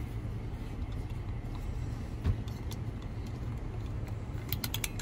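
Steady low rumble of a car cabin, with one knock about two seconds in and a quick run of clicks near the end as a music box is handled.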